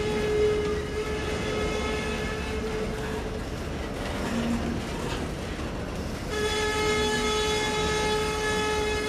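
Train horn sounding in long held blasts: one ends about three seconds in and another starts about six seconds in. Underneath runs the steady rumble of a double-stack container freight train's cars rolling past.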